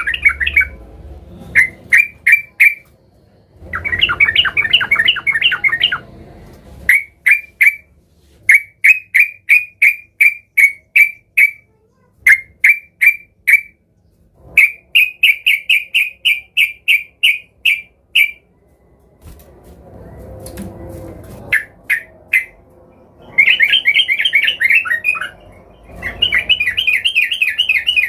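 Yellow-vented bulbul (trucukan) singing hard. Loud, dense chattering bursts alternate with runs of short, evenly repeated notes, with brief pauses between phrases.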